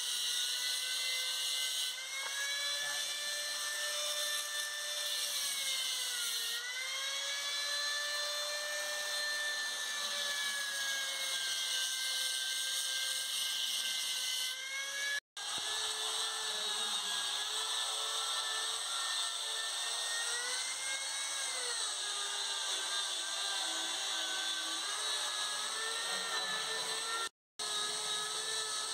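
Handheld electric power tool running with a high, steady whine over a hiss; its pitch sags and recovers several times as it takes load. It cuts out briefly twice.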